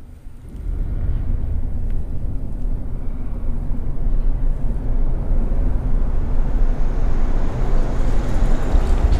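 Road traffic crossing the bridge directly overhead: a low rumble that comes in about half a second in and swells, louder and brighter toward the end, as a vehicle passes above.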